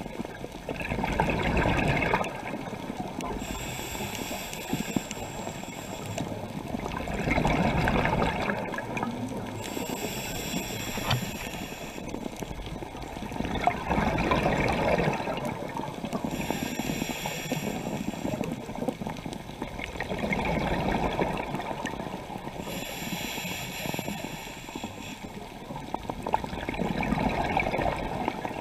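Scuba diver breathing through a regulator, heard underwater: a hissing inhale, then a loud rush of exhaled bubbles, repeating about every six and a half seconds for five breaths.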